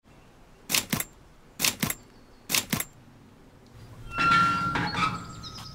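Intro sound effect: three double knocks, evenly spaced, then an iron gate creaking open as a long swelling creak with a thin squeal.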